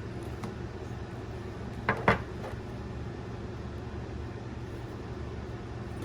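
Two sharp clacks close together about two seconds in, from the flashlight and its parts being handled, over a steady low hum.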